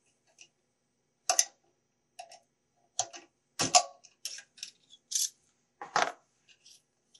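Irregular metallic clicks and clinks of a hex wrench and socket working loose the nut on a vacuum motor's rotating fan, with the motor switched off. The loudest knocks come about three and a half and six seconds in.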